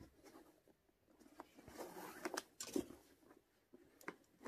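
Faint rustling and a few light clicks of a shoelace being threaded through a roller skate boot's eyelets and the boot being handled.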